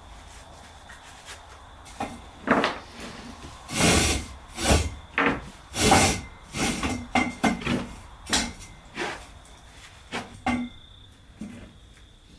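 An irregular series of about a dozen short scraping or rubbing strokes, some in quick succession. They start about two seconds in and die away near the end.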